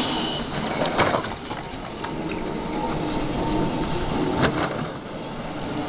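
Homemade RC truck with a 500-watt electric drive motor running off across concrete, its drivetrain rattling and clicking, with two sharp knocks about a second in and again a little past halfway.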